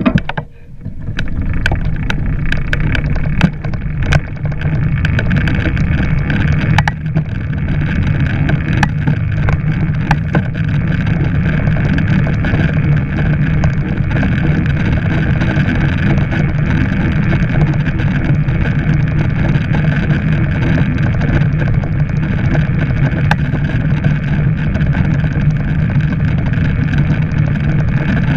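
Bicycle ridden at speed on a road: wind rushing over a handlebar-mounted microphone and tyres rolling on the tarmac, with a steady hum throughout. Scattered sharp clicks and knocks are heard, most of them in the first ten seconds.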